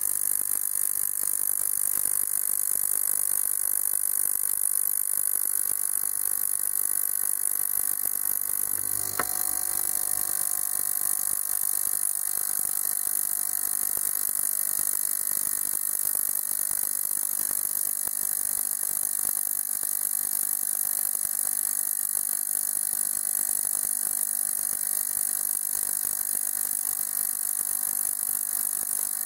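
Ultrasonic cleaning bath running, filled with water and ultrasonic cleaning fluid: a steady, high-pitched hiss-buzz from the cavitating bath as it shakes debris out of a submerged fuel metering solenoid valve.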